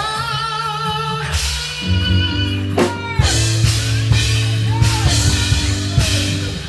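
Live band playing: a singer holds a long note with vibrato, then sings shorter gliding phrases, over sustained bass notes and drum hits.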